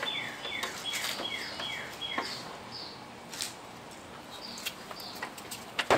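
A bird singing a quick run of falling whistled chirps, about three a second, which stops about two seconds in. Then a few sharp clicks of hand tools on the front suspension, the loudest near the end.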